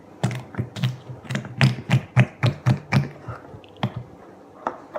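Homemade slime being squeezed and folded in the hands, giving a quick run of sharp clicks and pops, about three a second, which stops about four seconds in.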